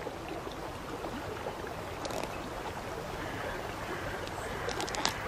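Steady rush of a shallow river, with a few faint short tearing sounds from a bald eagle ripping at a salmon carcass with its beak.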